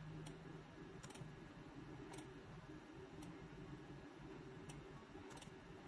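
Faint computer mouse clicks, about six spaced irregularly, over quiet room tone.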